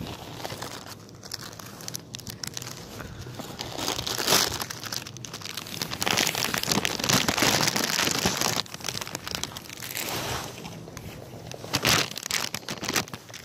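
Plastic snack wrapper crinkling and crackling as it is handled, loudest from about six to eight and a half seconds in.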